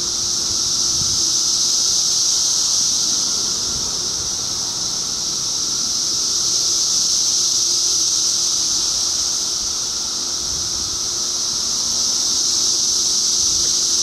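Dense chorus of periodical cicadas from the 2013 Brood II emergence: a steady high-pitched buzz with a fainter lower drone beneath it, swelling and easing slowly about every five seconds.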